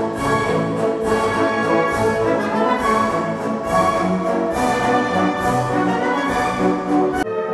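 Orchestral music with brass and strings played back over the Viva Audio Master Horn loudspeaker system. The sound changes abruptly just before the end.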